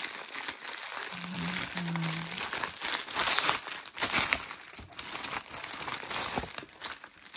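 Clear plastic packaging crinkling and rustling as hands open and handle a diamond painting kit's bags, with louder rustles about three and four seconds in.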